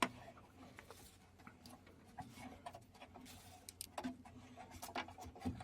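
Faint, scattered clicks and ticks of metal parts being handled as a sealant-coated threaded fitting is started into the water heater by hand, with a sharper click at the start.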